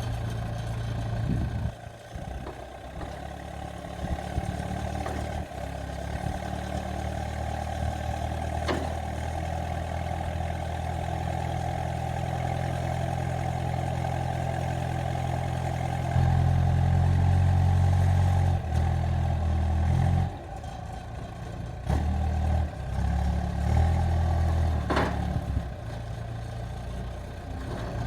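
Heavy machine's engine running steadily, revving up under load twice in the second half, with a steady higher whine over it and a couple of sharp clanks.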